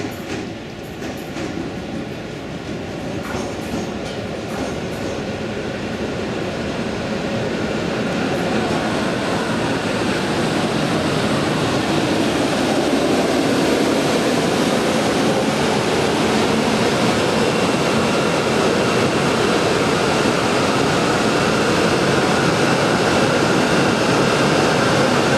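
Siemens Vectron electric locomotive and its passenger coaches rolling past close along the platform, the running noise growing louder over the first ten seconds as it nears, then holding steady.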